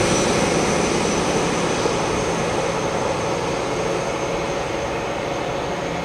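High Speed Train (InterCity 125) diesel power car running away from the listener, a steady engine noise with a thin high whine that fades gradually as it recedes.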